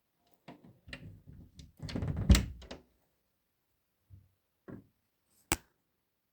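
A cluster of knocks and clatter building to one loud thunk about two seconds in, followed by two softer thumps and a single sharp click near the end.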